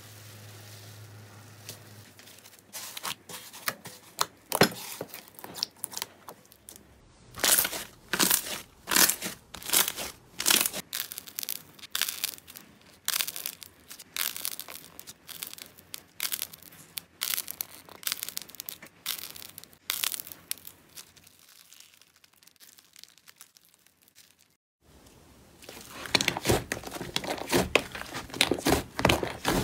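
Slime being pulled, pressed and kneaded by hand: a long run of crisp crackles, pops and tearing sounds. The crackling drops to a quiet lull about three quarters of the way in, then comes back dense and loud.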